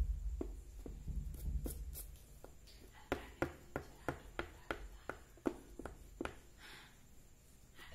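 White oil pastel stick working on paper in short, quick strokes: a run of about ten sharp taps, roughly three a second, with a low rumble in the first two seconds.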